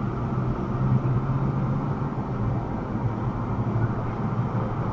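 Car driving at steady speed: a constant low rumble of tyres and engine, heard from inside the cabin.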